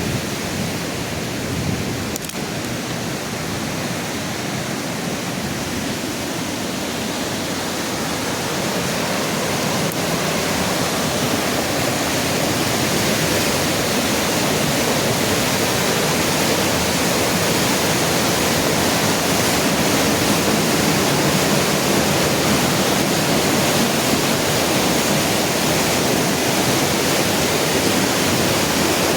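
Rushing floodwater of a swollen mountain stream, a steady even rush that grows gradually louder.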